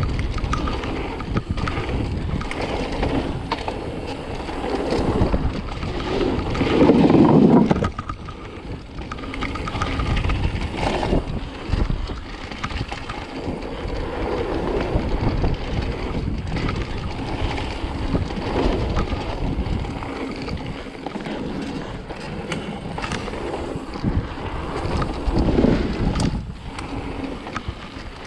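Mountain bike riding fast down a trail: wind rushing over the microphone, with tyre rumble and rattles and knocks from rough ground.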